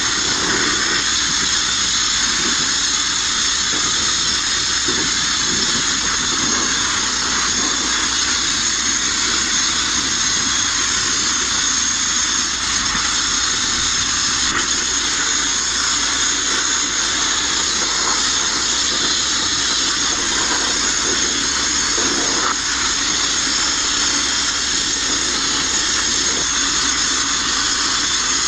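Abrasive media blaster's nozzle running without pause: a steady hiss of compressed air and grit striking the bare sheet steel inside a Mk1 Ford Transit van's cargo body.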